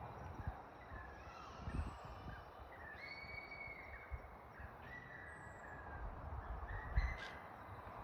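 Birds calling over a steady outdoor background: several drawn-out whistled notes, with low thuds on the microphone about 2 and 7 seconds in.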